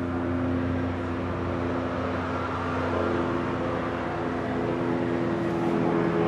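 A steady mechanical hum with several held tones over a rushing noise; the tones shift slightly in pitch about three seconds in.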